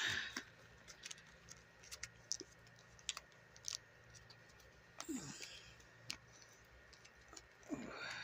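Faint scattered clicks and rubbing of a doll's boot being tugged and worked off its foot, with two short strained vocal sounds of effort, falling in pitch, about five seconds in and near the end.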